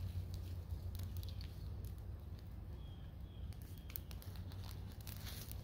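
Small teepee fire of dry sticks crackling, with scattered sharp pops, over a low steady rumble.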